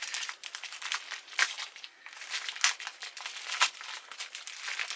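Plastic packaging crinkling and rustling as it is handled, in an irregular run of crackles with a few sharper ones.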